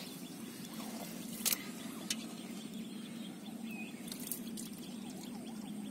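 A steady low drone of a distant motor, with two faint clicks about one and a half and two seconds in as a metal bowl is handled in the mud.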